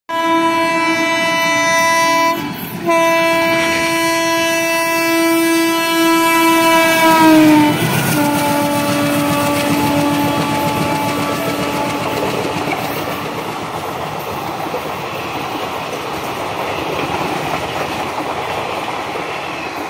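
WDM-3A diesel locomotive's horn blown long, with one brief break, as the train approaches at speed; its pitch drops as the locomotive passes, and the horn trails off. Then the rumble and clickety-clack of the passenger coaches running past.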